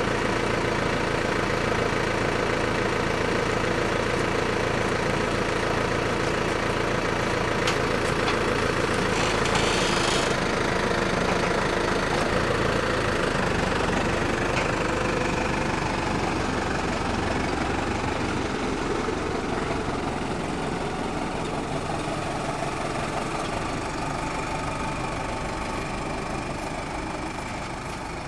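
Case 105 JXU tractor's diesel engine running steadily while its homemade front crane lifts a 600 kg jumbo bag, with a brief hiss about ten seconds in and a shift in the engine note soon after. The sound fades slowly near the end as the tractor drives off with the load.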